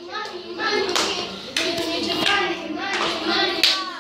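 Children's hand claps keeping a steady beat, with young girls singing along.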